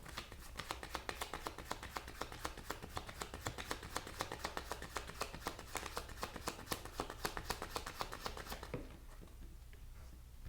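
Tarot deck shuffled by hand to draw another card: a fast, even run of card snaps, about eight a second, that stops about a second and a half before the end.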